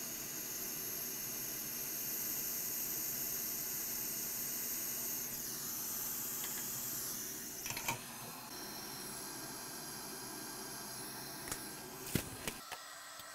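Steady hiss of a hot-air rework station's airflow while a replacement ceramic capacitor is soldered onto a laptop motherboard in place of a shorted one. A few light clicks come around the middle and again near the end.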